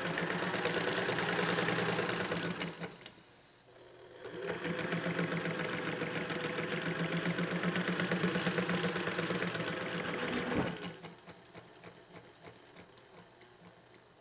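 Singer Spartan 192 sewing machine running under its electric motor: a run that stops about three seconds in, a second, longer run of about six seconds, then slower, fainter clicking of the mechanism until the end.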